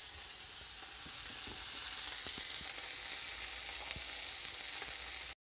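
Flour-dusted Atlantic cod fillet sizzling steadily as it fries in hot oil, with a few faint pops; the fish is nearly cooked through. The sound cuts out abruptly at the very end.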